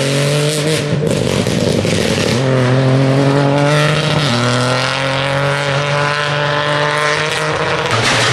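Peugeot 208 rally car accelerating hard, its engine revs climbing through the gears, with the pitch dropping back at upshifts about two and four seconds in.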